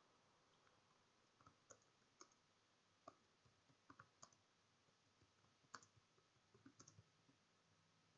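Faint, irregular keystrokes on a computer keyboard as text is typed, over near silence.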